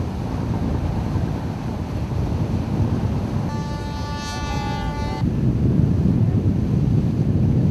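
Wind buffeting the microphone over the rush of water from a Mini 6.50 racing sailboat driving fast through choppy water. About three and a half seconds in, a horn sounds one steady blast lasting nearly two seconds.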